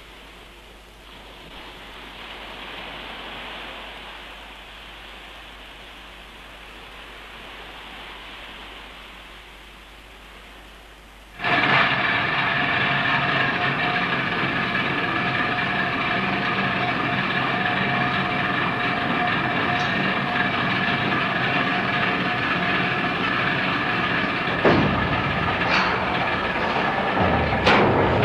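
Faint steady hiss, then about 11 seconds in a sudden loud, steady drone of heavy salvage machinery, the cranes and winches hoisting a huge chain, with several held whining tones. Two falling whines near the end.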